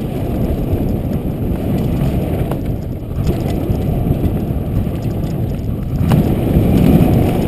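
Riding noise from a mountain bike going fast down a dirt trail: wind buffeting the bike-mounted camera's microphone and tyre rumble, with a few faint clicks. It grows louder about six seconds in.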